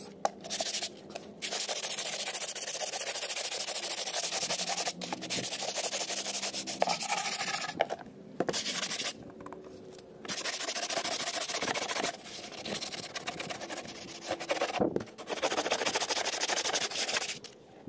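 Hand sanding of a fiberglass fairing with a folded strip of sandpaper: rapid back-and-forth rasping strokes in several spells of a few seconds each, with short pauses between them. The sanding smooths the rough edge of the freshly demoulded part.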